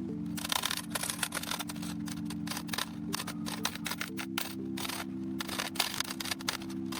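Olivetti Lettera 62 manual typewriter typebars striking the page in a quick, irregular run of sharp clicks. Low sustained background music lies under it, changing chord about four seconds in.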